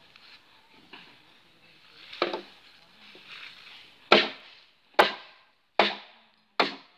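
Sharp striking blows: one about two seconds in, then four in a steady rhythm a little under a second apart, each dying away quickly. The blows fit tool strikes on wood, such as chopping.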